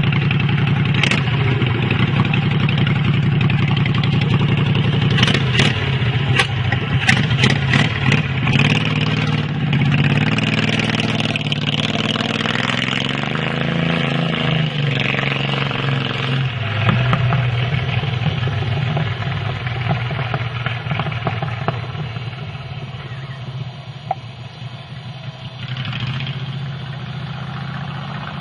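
A mini chopper's 18-horsepower, 614 cc V-twin engine runs throughout, its pitch climbing and falling as it is throttled up and back about halfway through. A few sharp clicks come about a quarter of the way in.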